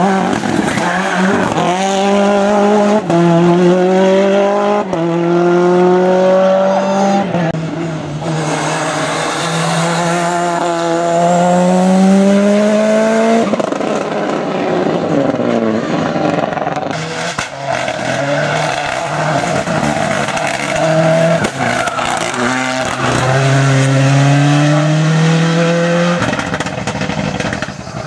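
Ford Escort WRC and Escort RS Cosworth rally cars' turbocharged four-cylinder engines accelerating hard, one car after another, the engine pitch climbing and dropping back with each upshift.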